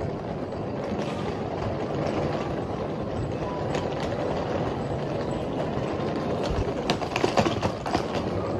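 Steady rumbling ambience of a metro station concourse while walking through, with a cluster of sharp clicks and knocks about seven seconds in.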